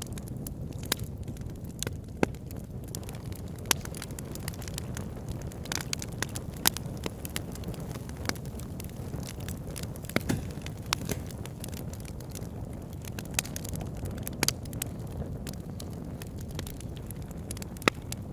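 Wood fire burning in a fireplace: a steady low rumble of the flames with irregular sharp crackles and pops, a few of them louder snaps.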